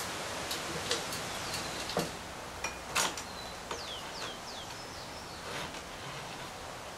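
A few sharp clicks and knocks as the awning arm is handled, the loudest about two and three seconds in, over a steady outdoor hiss. Birds call in quick chirps that fall in pitch, a few in a row around four seconds in.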